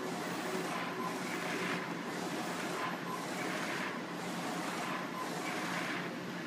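Direct-to-garment inkjet printer at work: the print-head carriage sweeps back and forth, a whoosh that swells and fades about once a second over a steady machine hum.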